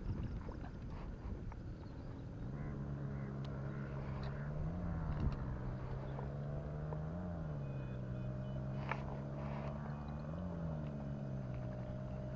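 A motor engine runs at a steady low pitch from about two seconds in. Its pitch rises briefly and drops back three times.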